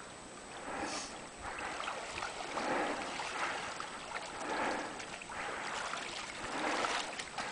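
Water sloshing around a person's legs as they wade through shallow river water, a soft swish with each step, over the steady rush of the river.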